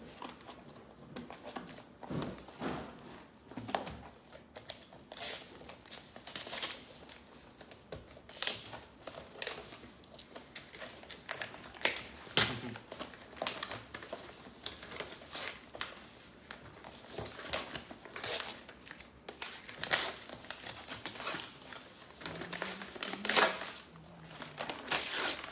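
Brown kraft wrapping paper being handled and pulled off a gift box, in an irregular run of crinkling and rustling with sharp crackles, loudest near the end.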